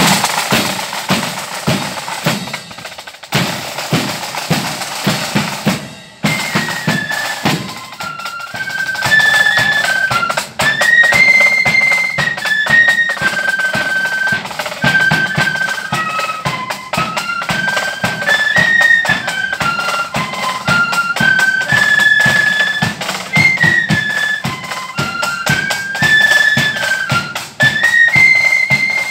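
Marching flute band playing: snare and bass drums beat alone at first, then the flutes come in with a tune about six seconds in and carry it over the drums.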